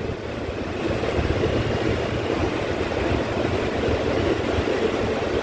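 R160 subway car's steady rumble and hiss, heard inside the car.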